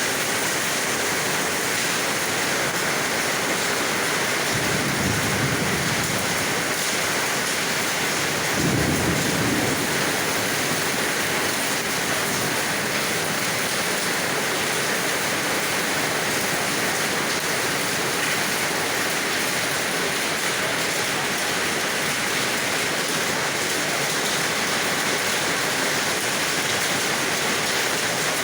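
Heavy rain pouring steadily, with two short low rumbles of thunder about five and nine seconds in.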